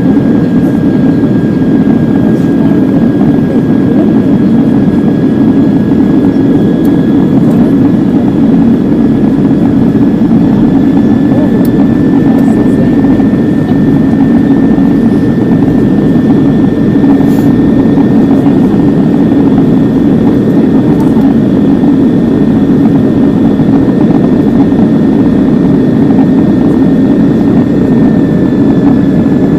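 Steady roar of jet engines and airflow heard inside an Airbus airliner's cabin on approach to landing, with a thin high engine whine over it that rises slightly about twelve seconds in and drops back a little near the end.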